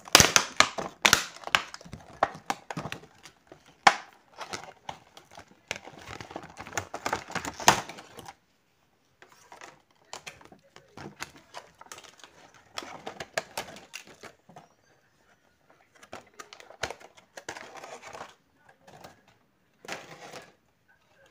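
Clear plastic blister packaging and its paper insert crinkling and clicking as they are handled. The noise is busiest in the first eight seconds, then comes in short bursts with pauses.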